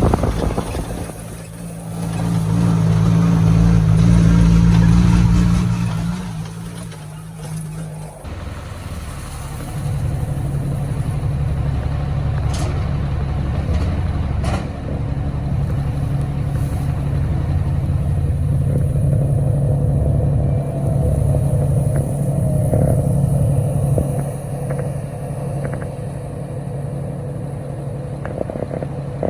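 A farm vehicle's engine running. It grows louder for a few seconds near the start, shifts pitch at about eight seconds, then runs steadily.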